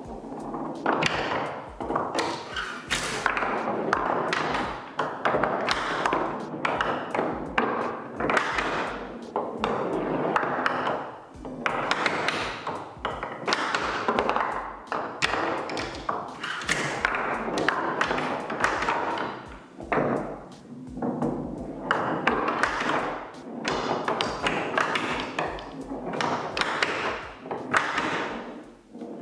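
A homemade plywood pinball machine being played: wooden flippers snapping and balls rolling across the plywood playfield, clacking and knocking against the wooden rails and barriers in a steady run of knocks and clicks.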